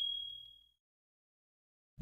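A high, clear bell-like ding fading out within the first second, with a few faint clicks, followed by complete silence.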